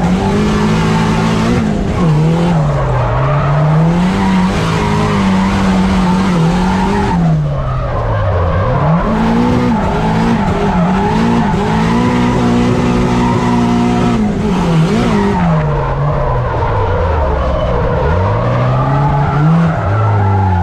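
Turbocharged SR20DET four-cylinder of a Nissan Silvia drift car, heard from inside the cabin, its revs swinging up and down constantly through a drift, dipping low about eight seconds in and again near the end before climbing back. Tyres skid and squeal under it.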